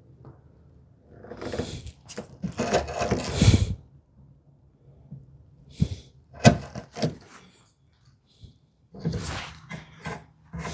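Hand-tool work at a hinge mortise in a cherry lid: a few seconds of scraping and rubbing, then three sharp knocks about half a second apart, and more scraping near the end.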